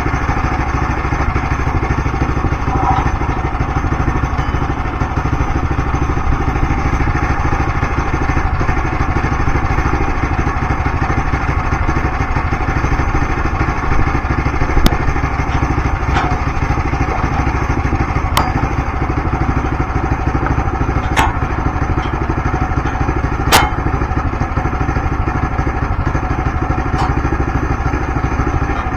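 An engine running steadily throughout, with a handful of sharp knocks or clacks in the second half.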